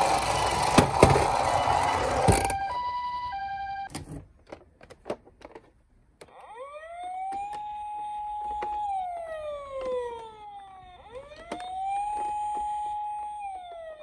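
A battery-powered toy ambulance runs loudly across a wooden table, then sounds a few high-low beeps. After some clicks of handling, a toy ambulance plays an electronic wail siren twice, each rising quickly, holding a steady pitch for about two seconds and gliding slowly down.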